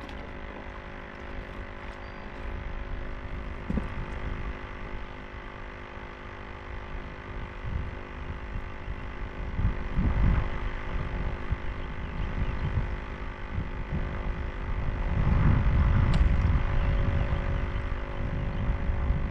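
Wind rumbling on the microphone in uneven gusts, strongest in the last few seconds, over a faint steady hum.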